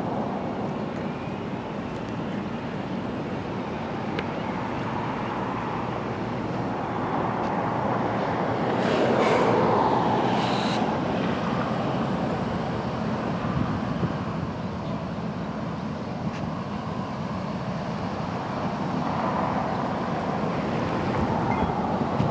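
Union Pacific diesel freight locomotive running at low speed while switching, a steady engine rumble that swells around the middle. Near the middle come two brief high-pitched sounds.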